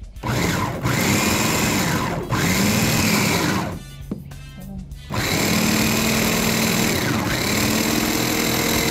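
Hamilton Beach electric mini food chopper's motor whirring as its blades chop cilantro with chile, run in two presses: one of about three and a half seconds, a brief pause, then a second run starting about five seconds in.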